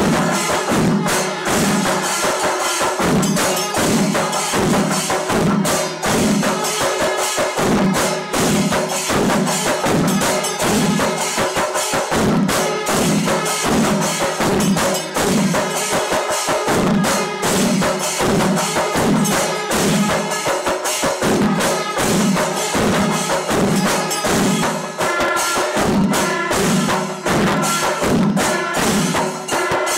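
Panchari melam: Kerala temple percussion ensemble of stick-beaten chenda drums with ilathalam brass hand cymbals, playing a dense, steady rhythm of rapid strikes over a regular deeper pulse.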